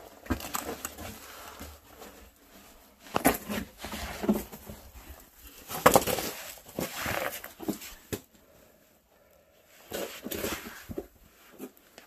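Irregular scraping, shuffling and knocking of clothing, gloves and boots against rock as a person squeezes and climbs through a narrow cave passage. The loudest scrapes come about three and six seconds in, and it grows quieter after about eight seconds.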